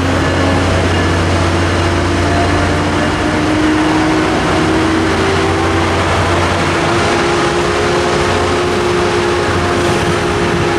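Tri-Rail commuter train pulling out: bilevel coaches rolling past with the diesel locomotive pushing at the rear, its engine note rising slowly as the train gathers speed.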